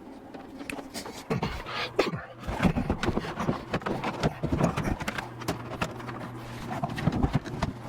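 Irregular clicks, taps and light knocks of plastic parts and cables being handled and fitted into place, over a faint low steady hum.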